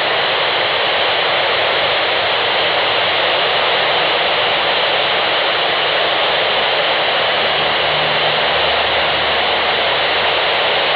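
Steady hiss of FM radio static from an amateur radio receiver tuned to the AO-91 (Fox-1B) satellite's downlink, with no voice coming through.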